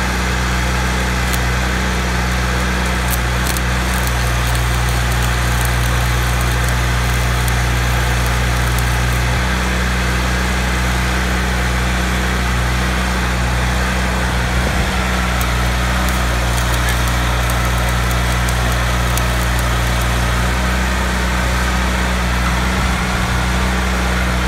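Engine of an engine-driven welding machine running steadily at constant speed. Over it, the crackle of a stick-welding arc during roughly the first nine seconds.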